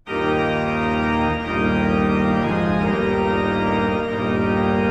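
Organ music: full, sustained chords that start suddenly and change every second or so.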